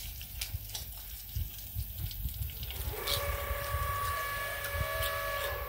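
A long, steady horn-like tone starts about three seconds in and holds for nearly three seconds, over a low rumble with scattered ticks.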